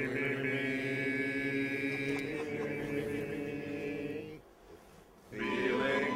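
A group of voices holds one long sung note for about four seconds and breaks off, then singing starts again near the end.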